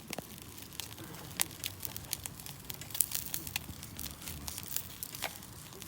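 Irregular sharp crackles and pops from food frying in oil in a pan over a wood campfire, with the fire itself crackling. The two loudest pops come about one and a half and three seconds in.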